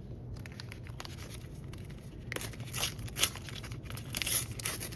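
Sticker packet wrapper and stickers being handled: paper crinkling and rustling, with sharper crinkly bursts from about halfway through.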